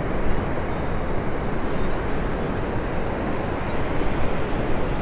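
Steady rush of Gulf surf breaking along the beach, with wind buffeting the microphone.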